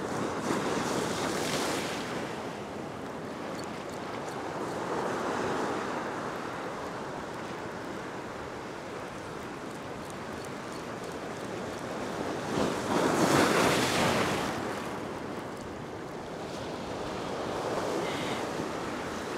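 Ocean surf breaking and washing across a rock ledge, swelling and easing in surges, with the loudest surge about two-thirds of the way through.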